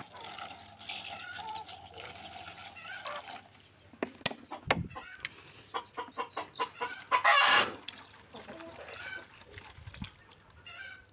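Village chickens clucking, with scattered taps and clicks around a plastic-bottle drinker and wire mesh. One louder sound comes about seven seconds in.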